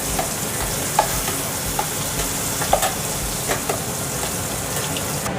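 Hot oil sizzling in a kadai as ground ajwain-leaf chutney is stirred into a mustard-seed and urad dal tempering, with a few sharp clicks about once a second. The sizzle cuts off suddenly near the end.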